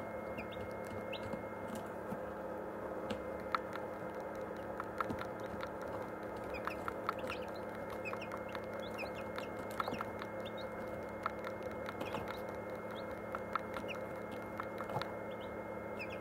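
Steady hum of an egg incubator running, with chicks cheeping inside it, and scattered faint clicks from a Canon Ixus 230 HS camera: a clicking noise the camera makes while it records, a fault.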